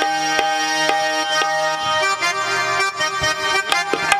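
Instrumental Marathi folk music: a reed keyboard holds a steady melody over hand-drum strokes about twice a second.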